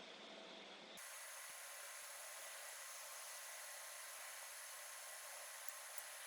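Faint steady hiss of background noise with no distinct sound; about a second in its tone abruptly shifts brighter and thinner.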